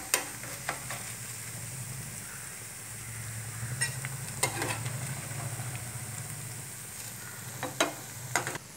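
Batter-coated cauliflower pieces sizzling steadily in hot oil in a frying pan, with about six short clinks and scrapes as a perforated steel strainer scoops them out.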